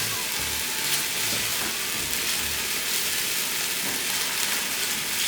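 Ginger garlic paste sizzling steadily in hot oil in a pan over medium heat as it sautés.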